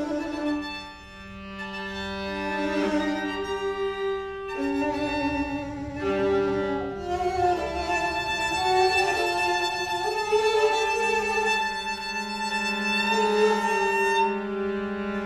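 String quartet of two violins, viola and cello playing long bowed notes in slowly shifting overlapping chords. The sound thins out about a second in, then swells back up.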